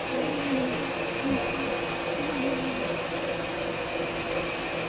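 KitchenAid stand mixer running at a steady speed, its motor giving a steady whine as the beater turns in the stainless steel bowl.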